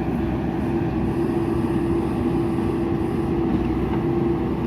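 JCB backhoe loader's diesel engine running steadily, with a constant tone held over the engine noise.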